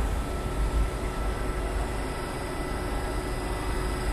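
Brussels Metro train slowing to a stop at an underground platform: a steady low rumble with a faint steady hum from the train's equipment.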